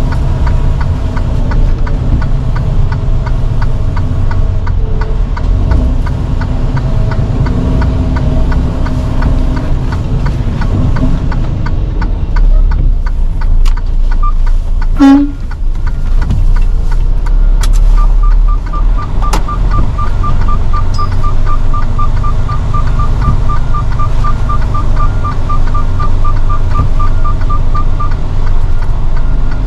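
Delivery truck's diesel engine running as the truck reverses into a driveway, with a brief loud burst about halfway through. A backup alarm then beeps in a quick, even series for about ten seconds.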